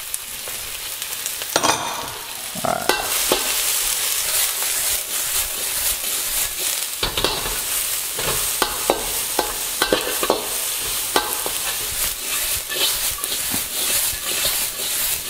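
Garlic, ginger, shallots and lemongrass sizzling in hot peanut oil in a wok, with a metal spatula scraping and clicking against the wok as they are stir-fried and tossed. The sizzle grows a little louder about three seconds in.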